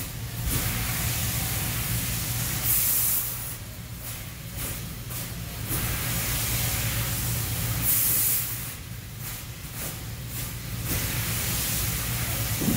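Industrial fiber laser cutter cutting sheet metal: a loud hiss of the assist-gas jet at the cutting head comes in spells of about three seconds, easing off in the gaps between cuts, with brief sharper hisses about three and eight seconds in. A steady low machine hum runs underneath.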